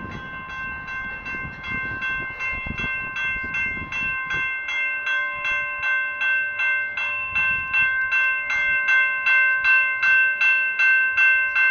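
Railroad crossing bell ringing in a steady repeated rhythm of about three strokes a second, growing louder toward the end. The crossing is activated with no train approaching: a malfunctioning crossing.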